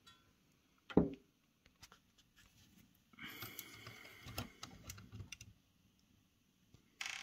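Small metal tools working a screw out of a cassette deck's transport: a sharp knock about a second in, then light clicks and scratchy metallic scraping as tweezers pick at the screw, and a short rustle near the end.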